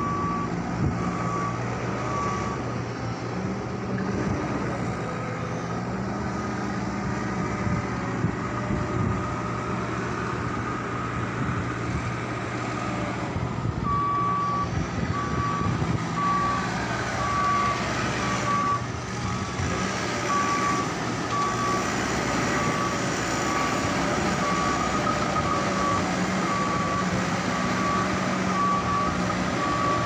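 Bulldozer's diesel engine running steadily as it trims coal in a ship's hold, with its reversing alarm beeping about twice a second. The beeping stops a few seconds in and starts again about halfway through.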